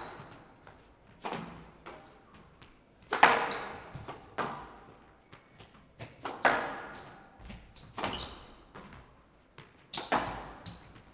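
Squash rally: the ball cracking off rackets and the court walls every second or two, each hit echoing in the hall, with brief high squeaks of shoes on the court floor between shots.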